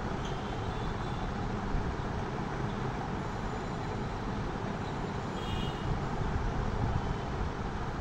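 Steady background rumble and hiss with no distinct events.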